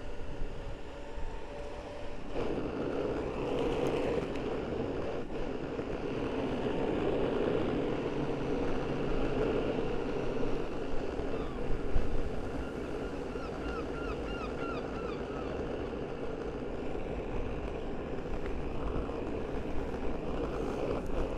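Steady rolling noise of a board riding over pavement, with wind rumbling on the microphone; it gets louder about two seconds in. A short run of small high chirps comes about two-thirds of the way through.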